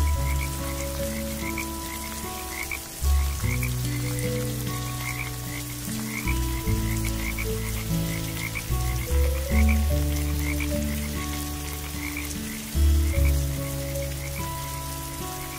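A chorus of frogs croaking: deep, overlapping calls that start and stop every second or two, with quick high chirps repeating a few times a second, over a steady hiss of rain.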